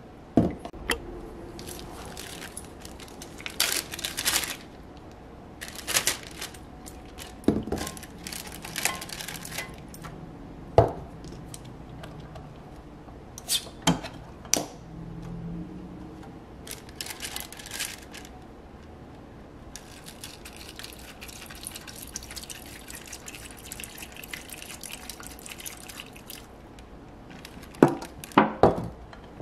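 Acetone poured from a metal can into a zip-top plastic bag in a glass dish: a steady trickle of liquid for several seconds, starting about two thirds of the way in. Before it come scattered clicks and handling knocks of the can, bag and glass, and a cluster of sharp knocks comes near the end.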